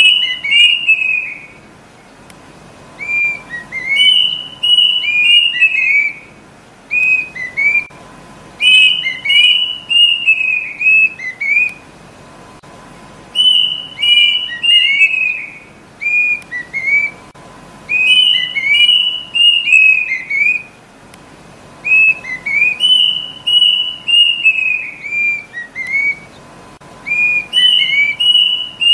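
Kedasih cuckoo singing: repeated phrases of clear whistled notes, each phrase starting high and stepping down in pitch, coming about every four to five seconds.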